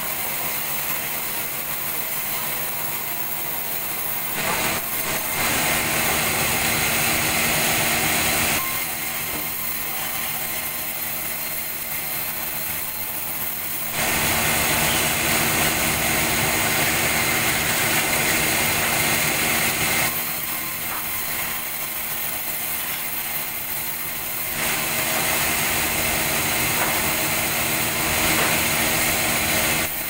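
Sawmill vertical band saw running steadily while a log of durian wood is fed through it and sawn lengthwise into planks. The noise gets louder for several seconds at a time, three times, between slightly quieter stretches.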